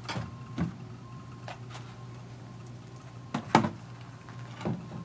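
A few short, sharp knocks as hands handle and strike a wooden box built from 2x6 boards, the loudest about three and a half seconds in, over a steady low hum.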